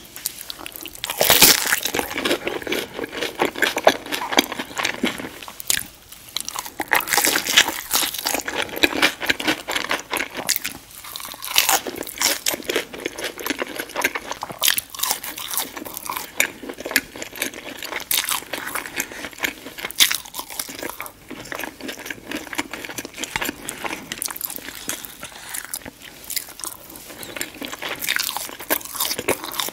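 Close-miked crunching and chewing of battered fried fish and fried potato wedges: crisp batter crackling bite after bite, starting about a second and a half in and going on throughout.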